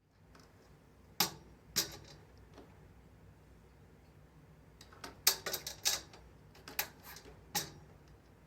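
Plastic curtain-rail runners clacking as a kitten bats at them with its paw: sharp clicks, two single ones a little over a second in, a quick clatter of several around five to six seconds in, then two more.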